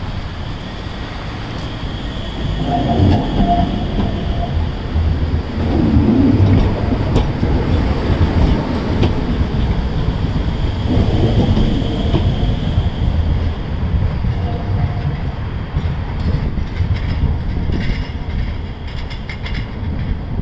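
Low-floor articulated electric tram passing close by on street track: a steady low rumble of steel wheels on the rails, with a faint high whine that rises and fades twice. Near the end come a run of sharp clicks as the wheels cross the track joints.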